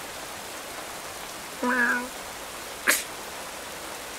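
Steady rain falling, with a cartoon cat giving a short, flat, low mew about one and a half seconds in and a sharp sneeze about three seconds in.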